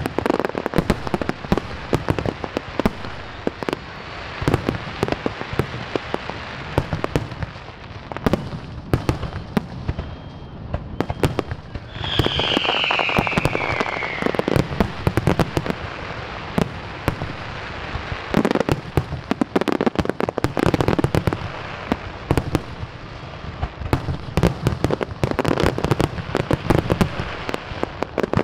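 Fireworks display: rapid bangs and crackling throughout, with a whistling shell falling in pitch about twelve seconds in.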